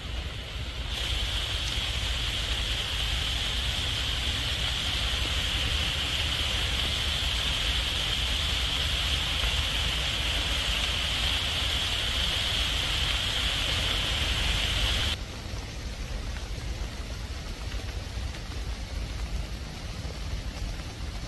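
Heavy rain falling on forest foliage, a steady hiss. It is louder and brighter for most of the stretch, then drops suddenly to a softer patter about fifteen seconds in.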